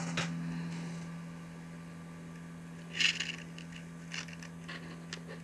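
Steady low electrical hum from an egg incubator and candling light. About three seconds in there is a brief rustle, and a few light clicks follow, typical of an egg being handled.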